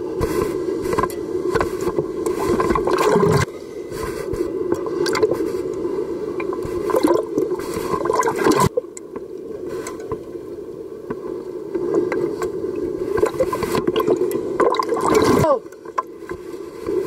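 Seawater sloshing and gurgling around a camera in the water, with waves breaking and rushing close by. The sound is muffled and changes abruptly a few times, at about three and a half, nine and fifteen and a half seconds in.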